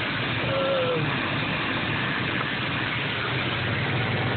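Ford 5.0 Mustang V8 idling steadily, running on a failing fuel pump that holds only about 20 psi where it should be around 40.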